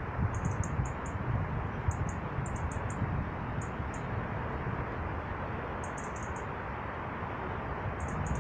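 Long-tailed tits calling: thin, very high 'see-see-see' notes in quick runs of two to five, repeated every second or two, over a steady low rumble of background noise.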